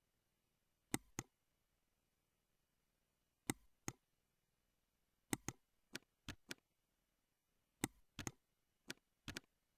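Sharp, quiet clicks of a computer mouse and keyboard against near silence, about fifteen in all, many coming in quick pairs of press and release.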